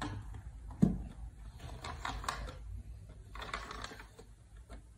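Red plastic party cups being shuffled on a rug: a dull thump as a cup is set down about a second in, then two spells of scraping and rattling as the cups slide and tap against each other.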